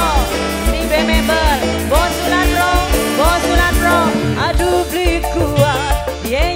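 Loud music with a heavy, pulsing bass beat and a sliding, ornamented melody line.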